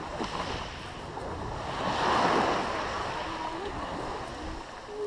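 Black Sea surf washing in, with wind buffeting the microphone; one wave swells louder about two seconds in.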